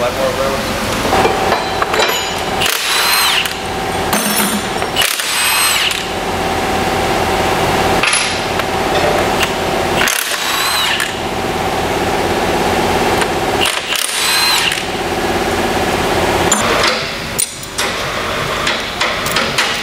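Power tool running in repeated bursts of a few seconds, its whine rising as it spins up and falling away each time it stops.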